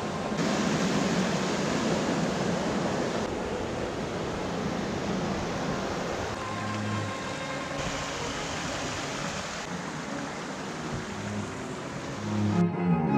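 Rushing creek water, a steady rush of noise that jumps in level at several cuts, with faint held music notes underneath. Near the end the water cuts off and music with bowed strings, a cello, takes over.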